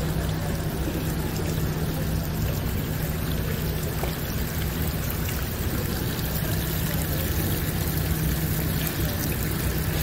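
Water running steadily from a hose, over a continuous low engine hum.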